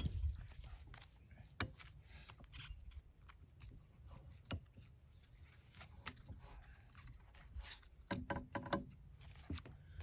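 Mostly quiet, with scattered faint clicks and knocks and a short cluster of small knocks near the end: a person handling a log with a cant hook on a sawmill bed and moving about around it.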